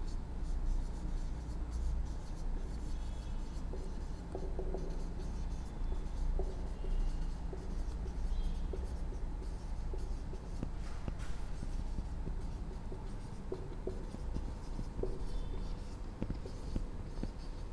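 Marker pen writing on a whiteboard: a run of short scratching strokes as a line of words is written, over a steady low hum.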